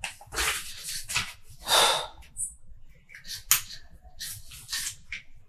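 Sheets of paper rustling as they are handled and turned, in a series of short bursts, with one sharp click about three and a half seconds in.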